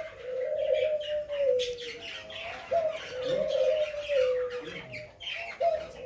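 Budgerigars twittering and chattering in a steady high haze, while a dove coos in a low call three times. Each coo jumps up at its start and then falls slowly over about two seconds.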